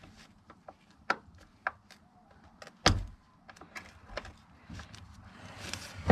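Hand tools clicking and tapping against the metal of a Chevy Tahoe's door hinge while the cut, worn-out hinge pin is worked loose. There is one heavier knock about three seconds in.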